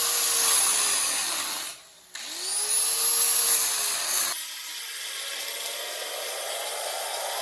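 Angle grinder with a cutting wheel cutting through the steel frame rail, running with a steady high whine. About two seconds in it cuts out briefly and spins back up with a rising whine. Past the middle the sound changes abruptly to a thinner hissing grind whose pitch slowly rises.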